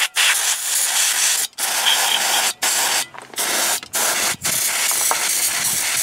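Aerosol can of brake cleaner spraying onto old drum brake shoes and hardware, a loud hiss in about six bursts, each a second or so, with brief breaks between.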